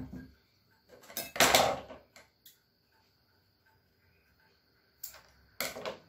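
Small metal vacuum-cleaner motor parts being handled and set down on a wooden table. There is one loud clatter about a second and a half in, a couple of light clicks after it, and two more knocks near the end.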